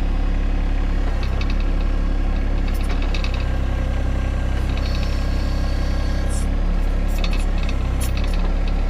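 John Deere 1025R compact tractor's three-cylinder diesel engine idling steadily, with a few light clicks and rattles.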